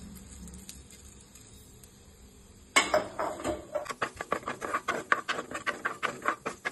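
Mustard seeds spluttering in hot coconut oil in a clay pot, stirred with a wooden spoon. About three seconds in the popping starts suddenly and runs on as a quick, irregular crackle of sharp pops.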